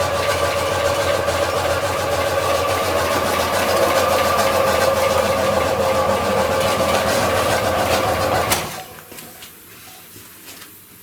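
VAZ-2107's carburetted 2106 engine running with a heavy knock, which new piston rings, timing chain, tensioner and guide have not cured. It stops abruptly about eight and a half seconds in, leaving only faint background noise.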